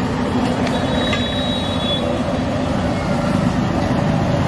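Metal spatulas scraping and clattering on a large iron tawa over a steady din of a busy street-food stall, with a thin metallic squeal shortly after the start.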